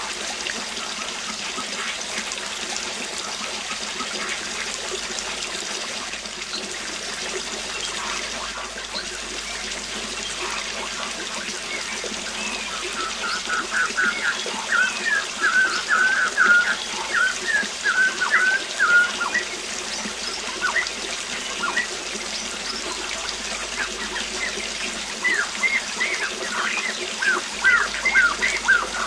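Steady rushing of a waterfall, with a songbird singing over it: a fast run of short chirps for several seconds about halfway through, and more short chirps near the end.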